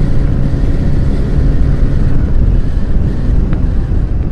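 TVS Raider 125's single-cylinder engine running at road speed under heavy wind rumble on the microphone. The engine's steady hum drops away under the wind about half a second in.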